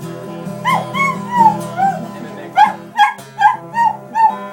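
A dog 'singing' along to guitar music: a few long, wavering howls that rise and fall in pitch, then a run of short yips about twice a second over the steady guitar chords.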